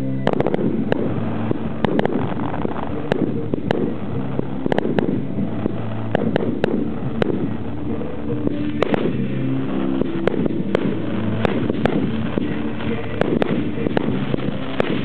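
Fireworks display: aerial shells bursting in a steady run of sharp bangs and crackles, about two a second, over a low droning background.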